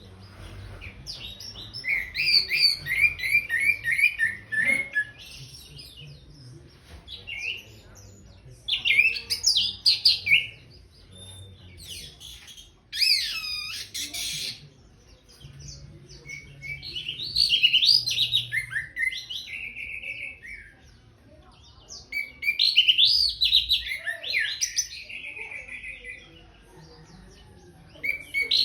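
Orange-headed thrush singing in separate bursts of loud, varied whistled phrases and rapid trills, with short pauses between them; one phrase near the middle is a quick run of sweeping notes.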